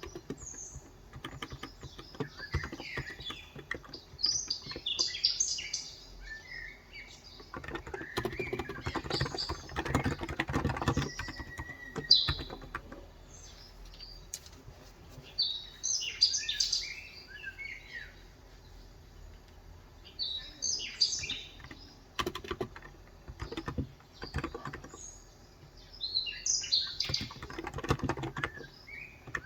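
Bursts of typing on a Cox Endeavour 35 g electro-capacitive (contactless) tenkeyless keyboard, soft rapid key strokes in two longer runs. Small birds chirp in quick high clusters every few seconds around them.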